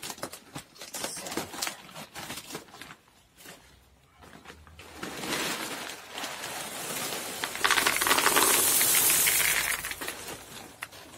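Plastic bag crinkling as it is opened and handled, then LECA expanded clay pebbles pouring from the bag into a flowerpot. The pour is a dense rattling rush, loudest for about two seconds near the end.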